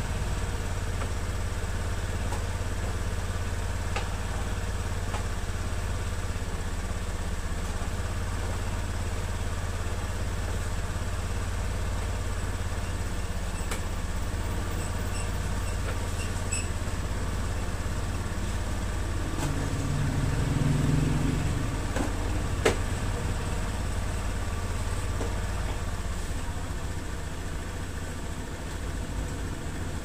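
Steady low mechanical hum, with a few sharp plastic clicks as scooter body panels are pressed into place.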